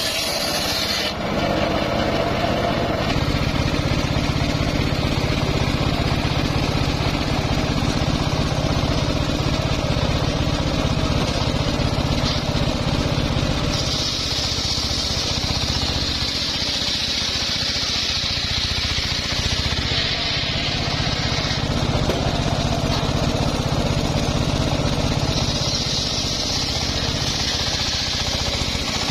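Homemade engine-driven circular saw bench running, its large blade ripping lengthwise through hardwood logs. A steady engine drone sits underneath, and the high hiss of the blade in the cut grows stronger from about halfway through and again near the end.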